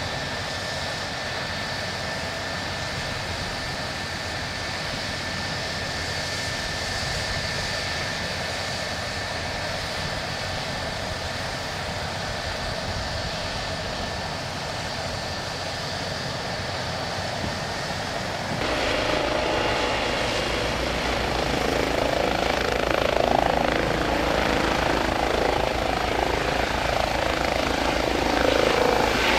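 Eurocopter EC135 air-ambulance helicopter running on the ground, with a steady turbine whine over the rotor noise. About two-thirds of the way through, the sound turns suddenly louder and heavier and keeps building as the helicopter powers up and lifts off.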